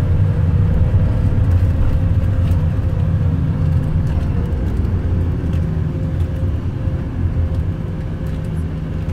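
Yutong coach bus driving, heard from inside the cabin: a steady low engine and road rumble with a faint, even tone above it and a few light ticks.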